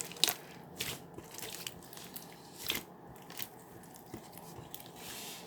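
Irregular sharp crunches and clicks, close up in a small room. The loudest comes a fraction of a second in and another just under three seconds in.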